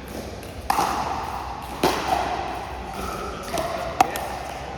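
Pickleball paddles hitting a plastic ball in a rally: three sharp pops, the second about a second after the first and the third about two seconds later.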